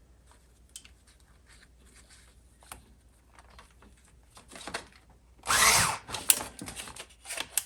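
Faint clicks of parts and tools being handled. About five and a half seconds in, a power drill runs briefly, for under a second, driving out a screw, followed by a few sharp metallic clicks.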